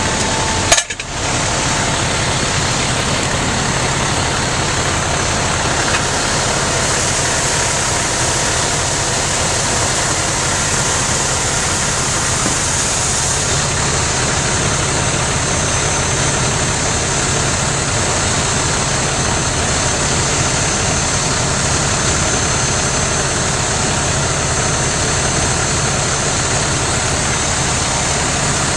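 Fire engine's diesel engine idling steadily, with a sharp knock about a second in and a high hiss rising over the engine for several seconds in the middle.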